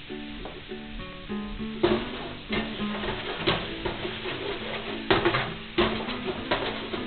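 Background acoustic guitar music, with a metal spatula scraping and knocking against a stainless steel frying pan as chopped chicken is stirred. The sharp scrapes come from about two seconds in, several of them, and are louder than the music.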